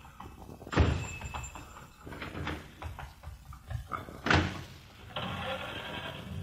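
Radio-drama sound effects: a loud slam about a second in, a second sharp crash a few seconds later, then a steady hiss near the end.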